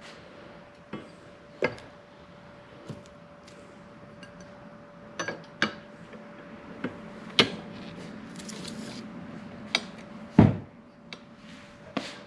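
Scattered clinks and taps of small metal rack hardware (screws, washers and clamp plates) being handled and fitted, with a heavier knock about ten seconds in. A faint steady hum runs underneath.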